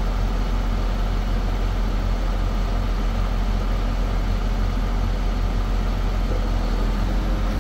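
MAN TGS 26.440 truck's six-cylinder diesel engine running steadily at idle, a deep even rumble.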